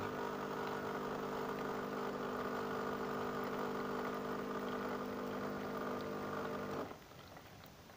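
Steady electric hum with several even tones, like an appliance's motor or pump running, cutting off suddenly about seven seconds in.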